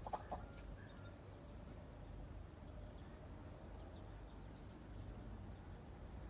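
Quiet outdoor background: a steady high-pitched tone like an insect's continuous trill over a low rumble, with two short soft sounds about a quarter of a second in.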